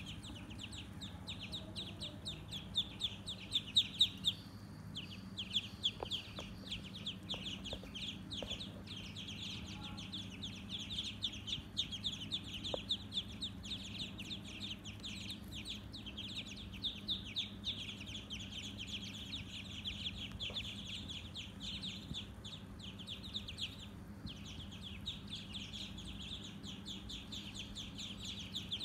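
A brood of ducklings peeping continuously, many short high-pitched cheeps overlapping, falling briefly silent twice.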